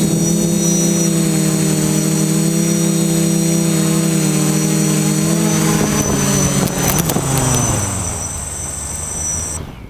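FPV quadcopter's motors and propellers, heard from its onboard GoPro, running with a steady hum and high whine. After about seven seconds the pitch falls as the quad sets down on the grass, and the motors stop abruptly just before the end.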